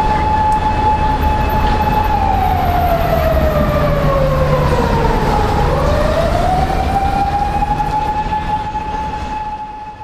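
Emergency vehicle siren wailing: a steady high tone that slides down over about three seconds, swings quickly back up and holds, over the low rumble of street traffic. It fades out near the end.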